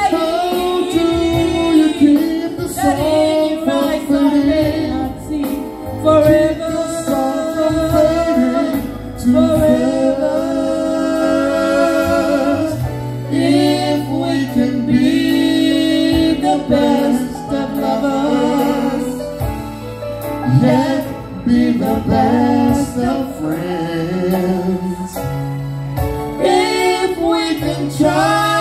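A woman and a man singing a duet into microphones over amplified instrumental music with held bass notes, played through PA speakers.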